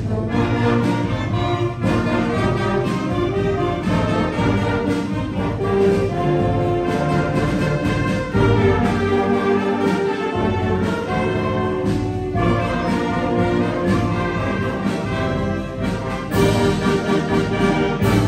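A school concert band playing, brass-led chords held and changing every second or two, with occasional percussion strokes.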